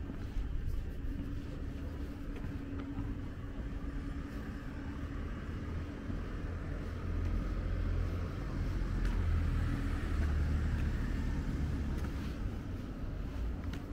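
A car running close by, growing louder about halfway through and easing off again, over a steady low hum and rumble.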